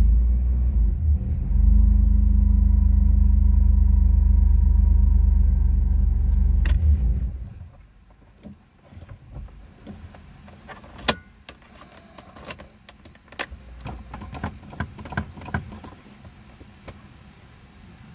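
Petrol car engine idling steadily, a little louder about two seconds in, then shut off about seven and a half seconds in. The car has an idle control valve error. Afterwards, clicks and jingling keys at the ignition.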